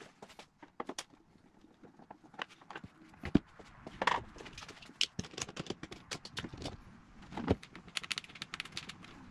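Scattered clicks, knocks and rattles of hands and tools working on plastic engine-bay parts. The loudest is a sharp knock about three and a half seconds in, and near the end come quick clicks as hands work at the plastic airbox and intake pipe.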